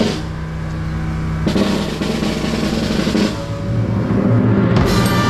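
A Guatemalan procession band playing a funeral march: drum strokes and a snare drum roll over low sustained notes, with crash-like strokes at the start and about a second and a half in. Near the end the full band, brass included, comes in with a loud stroke.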